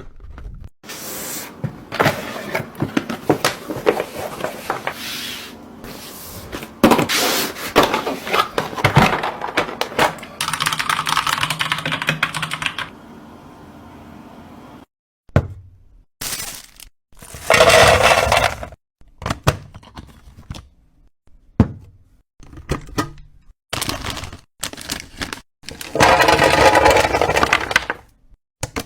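Small items and packaging being handled during unboxing and restocking. Quick clicks, knocks and scrapes come in short runs, with louder bursts of rustling, and the sound stops and restarts abruptly between cuts.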